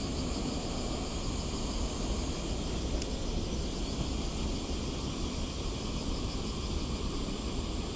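Steady outdoor background noise: a constant high insect drone over a low wind rumble on the microphone.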